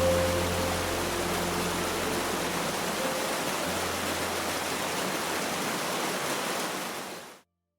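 Steady rushing noise, with the last sustained notes of music fading out in the first few seconds; it cuts off suddenly near the end.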